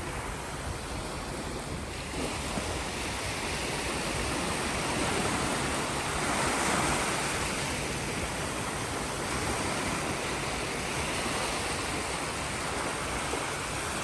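Sea waves washing onto the shore, a steady surf wash that swells to its loudest about halfway through as a wave comes in.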